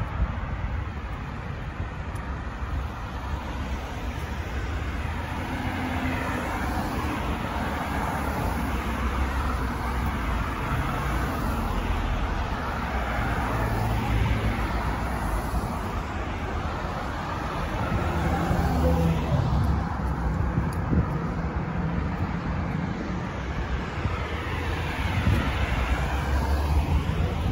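Road traffic: cars passing one after another on a multi-lane road, their tyre and engine noise swelling and fading as each goes by over a steady low rumble.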